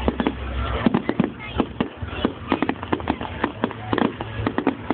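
Fireworks display: shells bursting in a rapid, irregular run of bangs and crackles, several a second.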